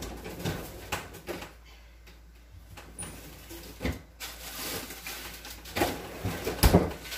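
A kitchen freezer being opened and frozen packages moved about: scattered knocks and clatter, with the loudest thump near the end.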